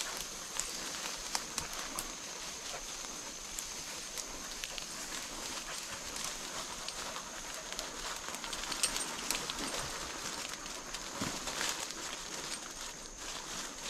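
Footsteps crunching through leaf litter and brush, with scattered twig snaps and rustling as hounds work the undergrowth close by, over a steady high-pitched buzz.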